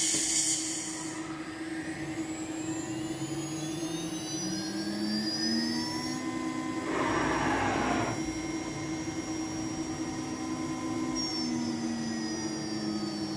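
Home-built CNC router running: the spindle and axis motors whine in tones that glide up and down and then level off as the head carries the 8 mm two-flute end mill over to the workpiece, over a steady hum. A hiss of air, as the tool-changer rack slides back, stops about a second in, and a short burst of noise comes about seven seconds in.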